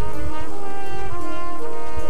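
High school marching band playing held brass chords that change several times, over low drum hits.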